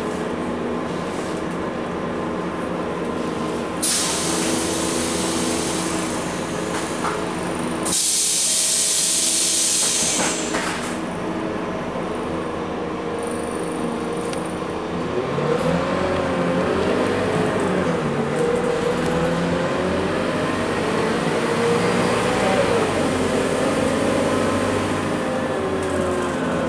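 Scania K230UB bus's nine-litre five-cylinder diesel idling, heard from inside the saloon, with two loud hisses of compressed air, a short one about four seconds in and a longer one around eight to ten seconds. About fifteen seconds in the engine speeds up as the bus pulls away, its pitch rising and falling through the gear changes.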